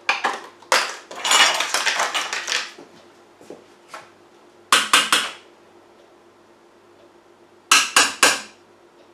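Spoon scraping margarine out of a plastic tub, then knocking against the rim of the Monsieur Cuisine Plus's stainless-steel mixing bowl in two quick sets of about three sharp taps, to shake the margarine off into the bowl.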